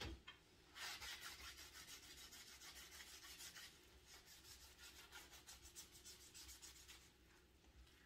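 A small hand scrubber rubbed quickly back and forth over the hard skin of a dried bottle gourd, a faint, fast scratchy rasp of several strokes a second, scrubbing the mottled outer skin clean. A soft knock comes at the very start.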